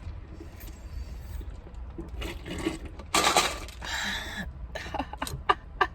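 Light clinks and taps from a drink container being handled, with a breathy huff of air about three seconds in and a few sharp clicks near the end, as the drinker recovers from a brain freeze after chugging a cold Sprite.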